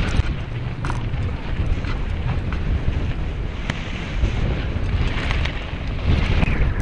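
Wind buffeting the microphone of a camera riding along on a mountain bike, over a steady low rumble of knobbly tyres on a dirt trail, with a few sharp knocks and rattles as the bike goes over bumps.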